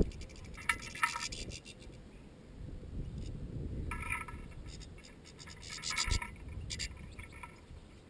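European goldfinches at a metal sunflower-seed feeder: three short bursts of rapid, clicky twittering, about a second in, around four seconds in, and again near six seconds, over a low rumble with a couple of dull thumps.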